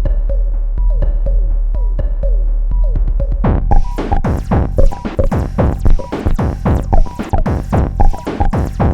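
Elektron Analog Rytm drum machine playing an electronic beat pattern: a deep steady bass underneath, short pitched blips and drum hits that fall in pitch. About three and a half seconds in, the pattern turns denser and fuller, with a strong hit about once a second and quicker hits between.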